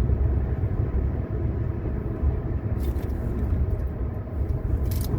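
Steady low rumble of a car heard from inside the cabin, with a couple of faint clicks.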